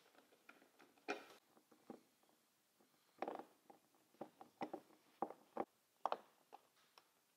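Faint, irregular clicks and taps of hand work on a car hardtop's side-window frame: a screwdriver driving small screws into the metal frame and window seal, with a cluster of sharper clicks in the middle.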